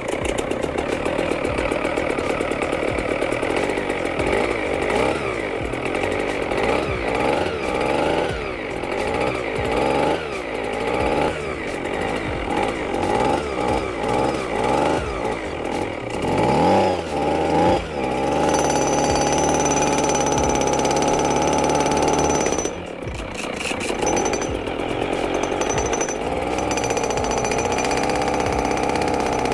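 Atlas Copco Cobra two-stroke petrol breaker running on its own after a long starting fault. For the first two-thirds it revs up and down over and over, then it holds a steady speed.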